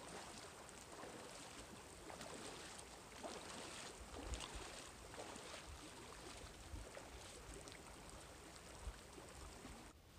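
Faint, irregular splashing and sloshing of boots and trekking poles wading through a shallow creek, over a low hiss of flowing water.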